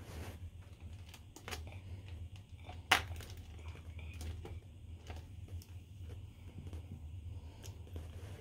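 Water-filled plastic zip bag crinkling and rustling as sharpened colored pencils are pushed through it, with scattered faint ticks and one sharp click about three seconds in, over a steady low hum.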